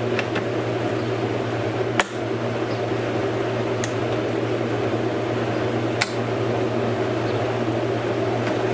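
Steady mechanical hum, like a running fan, with a sharp click about two seconds in and another about six seconds in.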